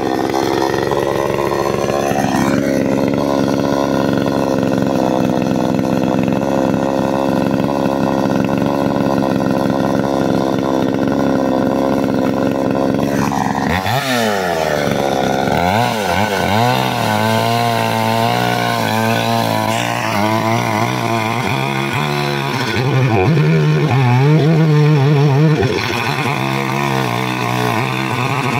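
Chainsaw running hard as it cuts through a thick chestnut-wood beam. About halfway through the engine note drops suddenly, then wavers up and down as the saw labours in the cut; it steadies and grows louder near the end before falling back.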